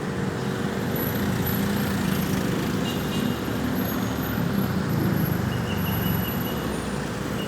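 Road traffic: the steady rumble of heavy vehicles' engines and tyres going by.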